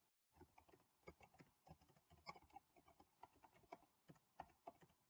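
Faint typing on a computer keyboard: a quick, irregular run of key clicks that starts just after the beginning and stops near the end.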